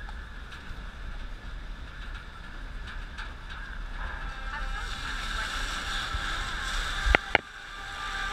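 Amphibious tour vehicle driving down a boat ramp into the water: steady engine and road noise, then water rushing along the hull, growing louder from about halfway in. Two sharp thumps come in quick succession about seven seconds in as it ploughs into the water.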